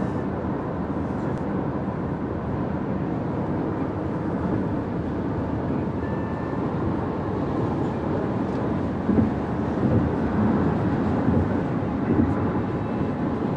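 Steady road and engine noise inside a car's cabin while it drives at highway speed.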